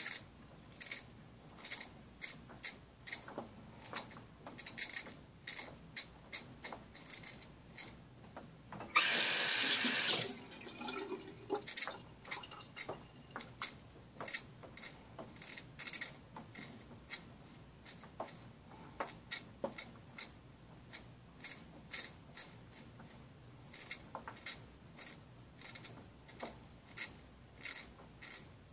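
Straight razor scraping through lathered mustache stubble in short strokes, one or two sharp scratches a second. About nine seconds in, a louder hiss lasts about a second.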